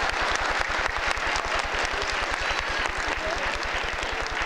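An audience, largely schoolchildren, applauding: many hands clapping at once in a steady, dense patter.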